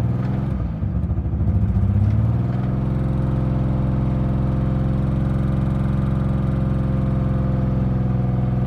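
Nissan 300ZX's V6 engine running with the throttle held open. The revs waver for about the first two seconds, then hold steady. The engine is misfiring and stalls when left to idle, so it is kept running on the gas.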